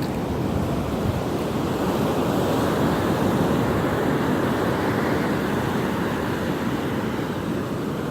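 Ocean surf washing onto the beach, a steady rush of breaking waves that swells through the middle and eases off near the end, with some wind on the microphone.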